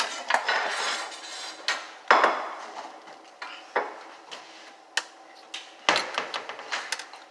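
Pots, pans and utensils clattering and knocking together as they are handled, in irregular sharp knocks, the loudest about two seconds in and again near six seconds.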